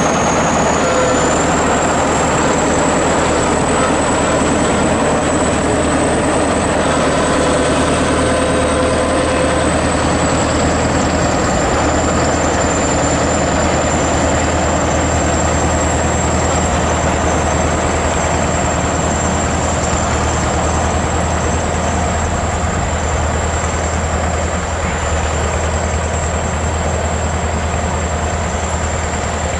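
ChTZ T-170 crawler bulldozer running steadily, its diesel engine droning under broad mechanical noise, with a thin high whine that rises in pitch about two seconds in and then holds.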